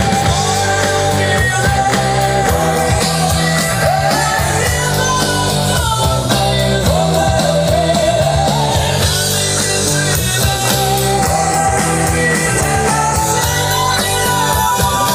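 A rock song with a singer, played loudly through a home-built dual TDA2030A stereo amplifier (about 18 watts a channel) into a two-way bookshelf speaker.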